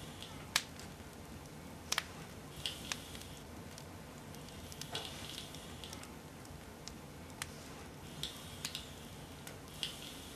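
Faint, scattered light clicks and knocks, with short soft scraping or rustling sounds every second or two over a low background hum.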